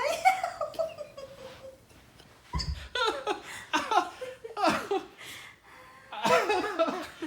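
People laughing in short bursts, with a dull low thump about two and a half seconds in.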